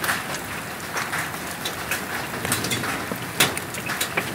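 Hailstones coming down hard, a dense steady patter broken by many sharper individual hits, one especially loud strike near the end.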